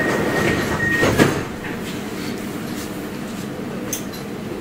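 Milan Metro line M5 driverless train: a steady high warning tone stops about a second in, then a single thud as the sliding doors shut. The car's quieter steady running hum follows.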